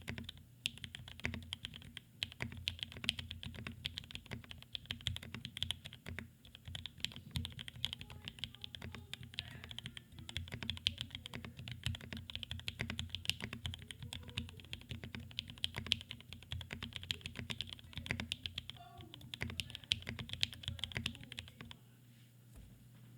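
Continuous typing on a custom mechanical keyboard: a NEO Keys Palette G67 with an acrylic case, a carbon fiber plate, lubed and filmed Gateron Black Ink v2 linear switches and GMK keycaps. The keystrokes come in a dense, uneven stream that stops about a second before the end.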